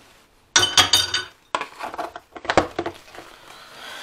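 Metal teaspoons clinking against a small drinking glass: a quick run of ringing clinks about half a second in, then a few separate sharp taps.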